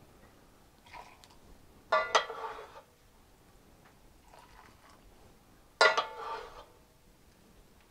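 A metal utensil clinking against a cooking pot: two sharp ringing strikes, one about two seconds in and one about six seconds in, with a few fainter clinks between.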